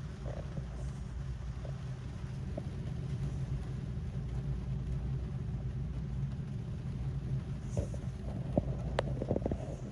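Rain heard from inside a car cabin: a steady low rumble fills the cabin. A few sharp taps and clicks come near the end.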